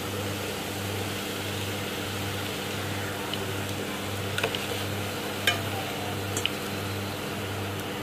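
Samosa patty strips deep-frying in hot oil in a steel pot, a steady sizzling bubble, with a few light clicks of a slotted spoon against the pot. A low hum pulses steadily underneath, about one and a half times a second.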